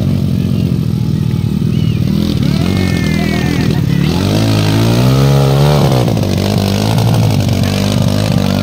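Dirt bike engine running and being revved as the rider works the bike out of deep mud. The revs climb about four and a half seconds in and fall back a second or so later. Crowd voices are heard underneath.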